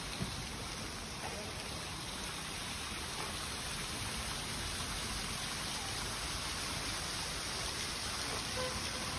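Steady rush and splash of water falling in a large stone fountain.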